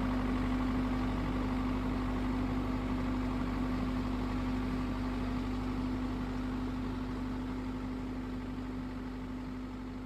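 Motor vehicle engine idling steadily with an even hum, slowly growing quieter through the second half.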